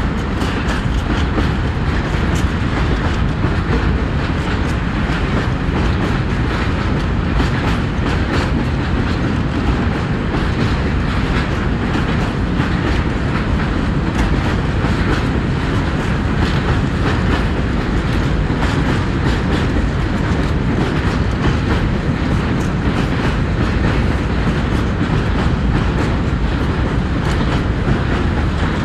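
Long train of empty coal hopper wagons rolling past on an elevated concrete viaduct: a steady rumble with a continual clatter of wheels over the rail joints.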